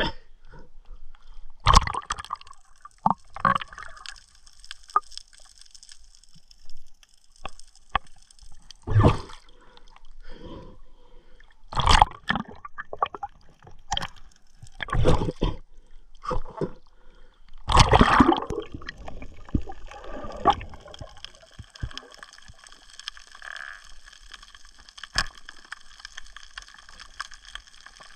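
Water sloshing and gurgling around an underwater camera, in irregular louder surges every few seconds over a faint steady high hiss.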